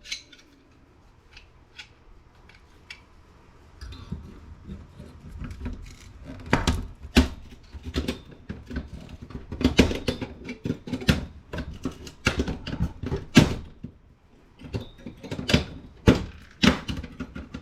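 Hand tool clicking, knocking and scraping on a circuit board as small aluminum heat sinks are pried off, in irregular sharp knocks that start after a few quieter seconds.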